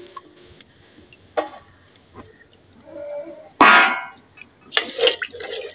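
Red kidney beans just tipped into hot tomato-onion masala, bubbling and sizzling in a steel pot over a wood fire, with scattered light metal clinks and one louder metal clank with a short ring a little past halfway.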